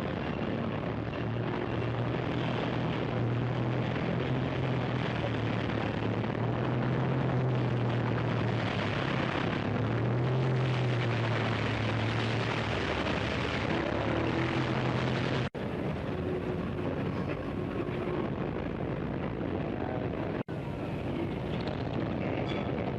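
Old-time city street ambience: a steady low engine drone under a dense wash of traffic noise. It drops out for an instant twice, about fifteen and twenty seconds in.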